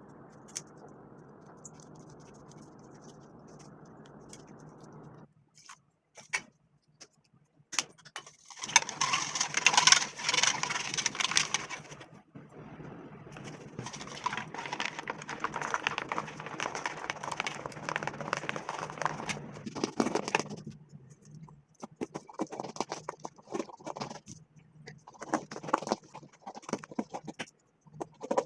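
Hand-mixing and handling noises from making slime: long stretches of rough scraping and rustling noise, loudest in the middle, then irregular clicks and short noisy bursts. A steady low hum sounds for the first five seconds, then stops.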